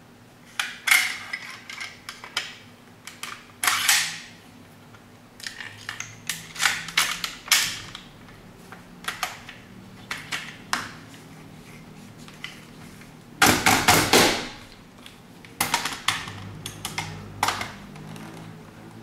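Metal parts of a WE SCAR gas blowback airsoft rifle clicking and clacking as it is handled and assembled with a prototype CNC steel bolt, with a longer, louder clattering rattle a little past the middle.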